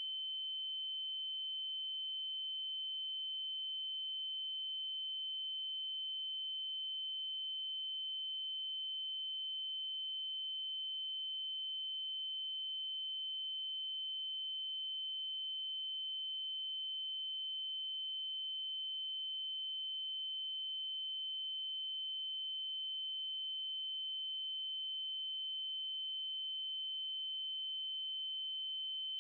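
Synthesized 3072 Hz triangle-wave tone, one steady high pitch that never changes.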